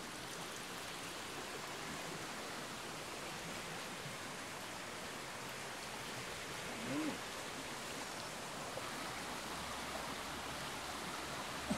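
Steady rushing of running stream water, an even hiss with no breaks, with one short low tone about seven seconds in.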